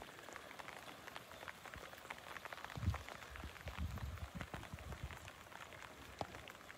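Light rain falling, heard as a dense scatter of small drop ticks. A few low thumps come about three seconds in and again around four seconds in.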